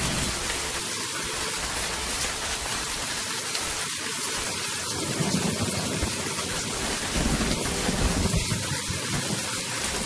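Storm at sea: a steady heavy hiss of wind and rain, with deep rumbles swelling about halfway through and again near the end.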